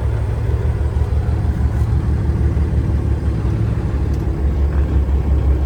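Truck engine running, a steady low rumble with a fast even pulse.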